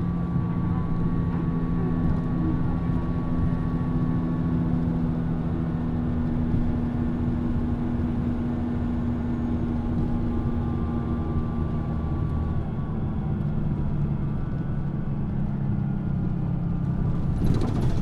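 Mitsubishi Fuso Aero Midi MK (PA-MK25FJ) route bus engine running steadily at low revs, a constant drone with a steady whine on top; this particular bus is known for an unusual noise. Near the end comes a brief hiss.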